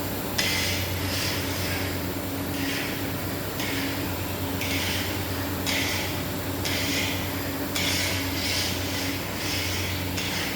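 Machinery running with a steady low hum, overlaid by a rasping, scraping noise that repeats about once a second, likely the scraper of an automatic mawa kettle working through the milk.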